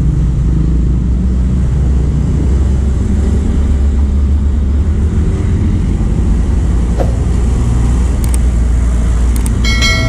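Road traffic passing close by, motorcycles and trucks, heard as a steady deep rumble of engines and tyres. A short ringing tone with several overtones comes just before the end.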